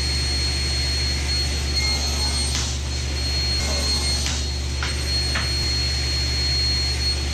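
Grizzly table saw running with no load, a steady hum with a thin high whine. A few light wooden knocks come about halfway through as pieces are set against the sled.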